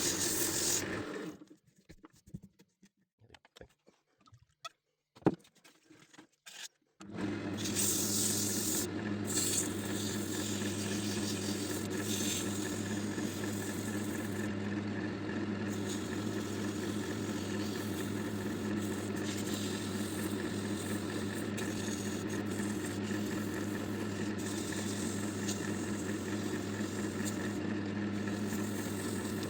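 Electric wood lathe running steadily with an even hum. Before it starts there are a few seconds of near silence broken by a single sharp click.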